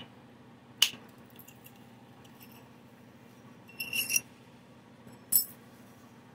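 Thin knapped stone flakes and a stone point preform clinking against each other as they are handled. Sharp, high clinks come once about a second in, then a quick cluster around four seconds, then once more about five seconds in.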